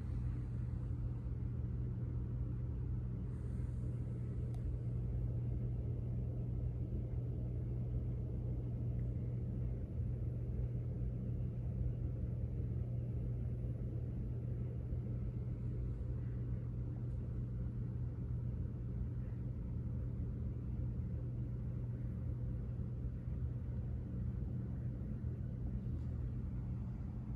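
Steady low background hum over a rumble, unchanging, with no distinct events.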